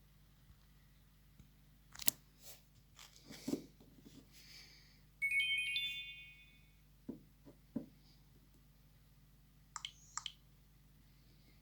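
Nokia Asha 200 mobile phone being handled: scattered button clicks and taps, and about five seconds in a short, bright electronic chime that rings for about a second and a half and fades. Two more quick clicks come near the end.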